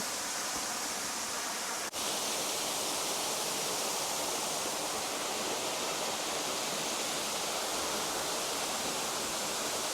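Waterfall pouring steadily into a pool at its foot, a continuous hiss of falling water, with a brief break about two seconds in.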